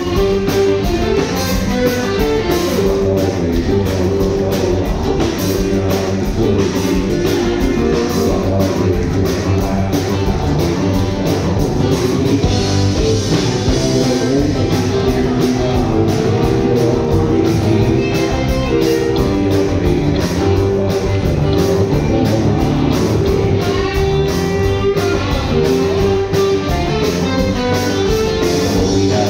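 Live rock band playing: electric and acoustic guitars, bass guitar and drum kit, over a steady drum beat.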